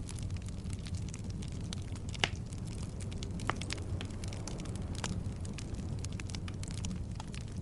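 Wood campfire burning, crackling and popping over a steady low rumble, with one sharp pop standing out a little over two seconds in.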